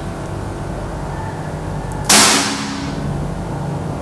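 PCP air rifle (Bocap Predator) firing a single shot about two seconds in: a sharp report that fades over about half a second, over a steady low hum. It is a velocity-test shot over a chronograph, which reads 1079.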